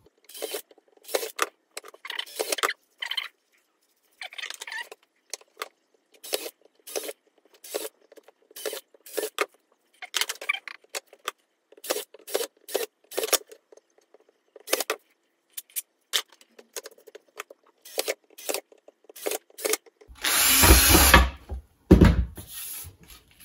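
Cordless drill with a 3 mm bit boring a row of holes through plastic pipe in many short bursts, each hole taking a fraction of a second. Near the end there is a louder, longer rush of noise followed by a knock.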